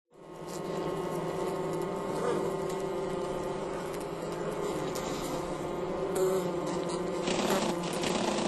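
Bumblebees buzzing inside their nest: a steady hum with many overtones that fades in at the start. From about seven seconds in, a rougher, hissier rustle joins the buzz.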